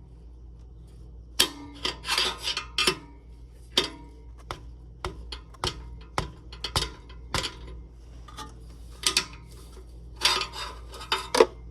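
Metal hand tools clinking and clicking against each other and against metal in irregular clusters: sockets, an extension bar and a ratchet being handled while working at a tight downpipe bolt.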